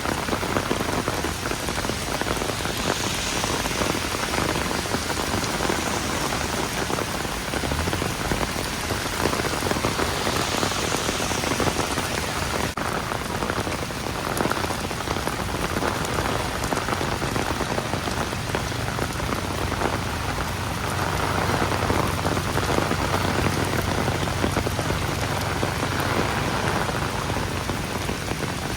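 Steady heavy rain, a dense patter of drops hitting wet street surfaces. A low hum joins underneath for several seconds in the second half.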